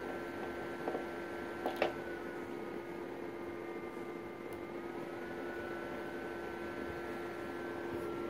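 Steady electrical hum with a faint hiss from a running HP 8921A service monitor, and faint high whistling tones that dip in pitch and return around the middle. Two light clicks come a little under two seconds in.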